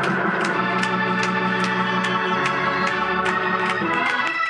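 Organ playing sustained chords in church praise music, the chord changing a couple of times, with a regular beat of sharp taps about three a second.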